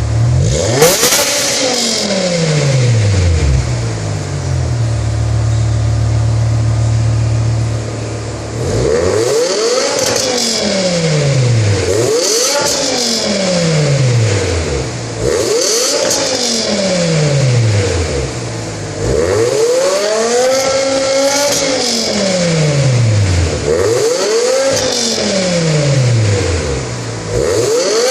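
BMW E63 M6's V10 engine through an aftermarket PSD valved full exhaust, idling with a quick blip about a second in, then free-revved repeatedly, about six revs rising and falling a few seconds apart, one held a little longer.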